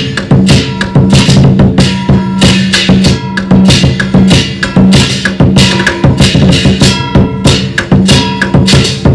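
Chinese percussion playing a fast, steady beat: drum strikes with cymbal and hand-gong hits ringing over them.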